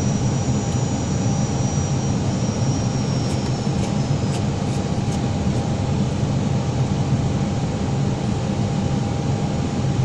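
Steady flight-deck noise of an Airbus airliner descending on approach: engines and airflow running at an even level, with a faint steady tone over it.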